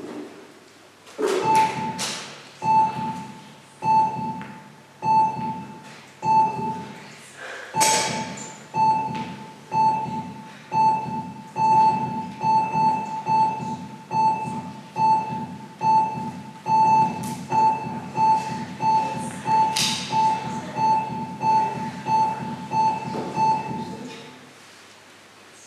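Hospital heart-monitor sound effect: a steady electronic beep with a heartbeat thump under each beep. The beats come at about one a second, quicken to about two a second, and stop about 24 seconds in. A few sharp hits ring out over the beeping.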